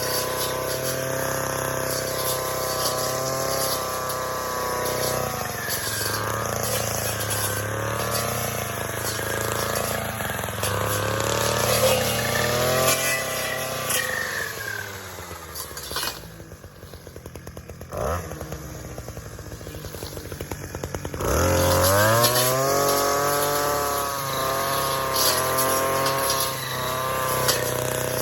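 Gas weed trimmer running at high revs while cutting brush. About halfway through it drops to a slow idle for several seconds, then is revved sharply back up to full speed and runs on.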